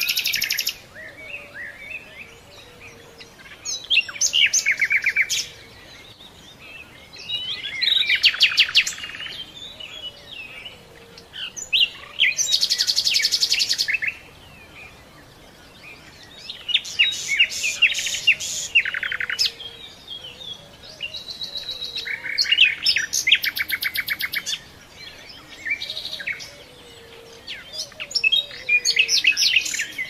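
Songbirds singing: short phrases of rapid high trills and chirps, each a second or two long, repeating every four to five seconds.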